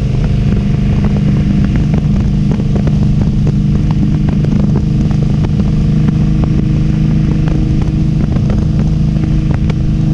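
Victory Octane motorcycle's V-twin engine running steadily at cruising speed, heard from the rider's seat, with no revving or gear changes.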